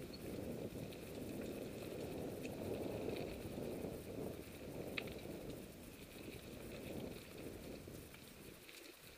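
Mountain bike rolling along a dirt singletrack: steady tyre noise over the packed dirt and leaf litter with bike rattle, and one sharp click about five seconds in.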